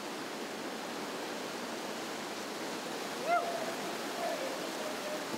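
Whitewater rapids rushing steadily. About three seconds in, a short shouted call rises briefly over the water.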